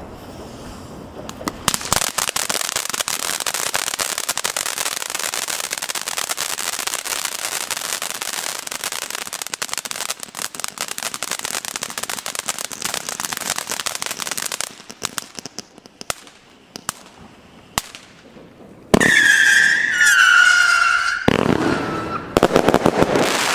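A small ground firework sprays a fountain of sparks with a steady hiss and dense crackling for about twelve seconds. A few single sharp cracks follow, then near the end a loud whistle that falls in pitch and a loud rushing hiss.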